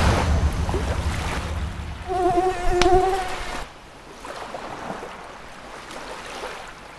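A buzzing insect whine wavers for about a second and a half, after the tail of music fades out; a faint steady hiss follows.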